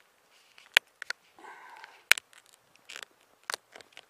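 Handling noise around a freshly caught Spanish mackerel on a carpeted boat deck: sharp clicks and knocks with soft scuffs between them, the two loudest clicks about a second and two seconds in.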